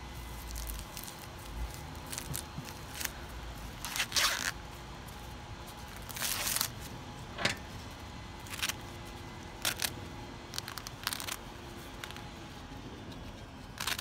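Husks being torn and stripped off a giant Peruvian choclo corn ear by hand: irregular crackling tears and rustles, about ten in all, the loudest around four and six seconds in.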